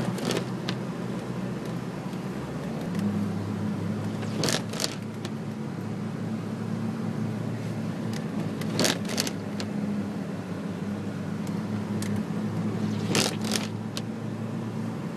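Truck on a Sno Trex track system driving over snow, its engine running steadily and stepping up a little about three seconds in. Short clusters of sharp knocks come roughly every four seconds.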